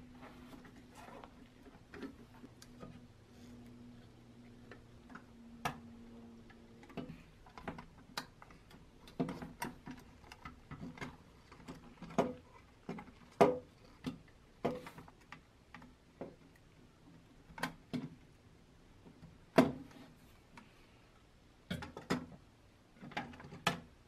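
Irregular small clicks and taps of pressed-steel toy truck parts being handled and fitted together, the painted cab and axle knocking against the metal chassis and the wooden bench, with a few sharper knocks. A faint steady hum stops about seven seconds in.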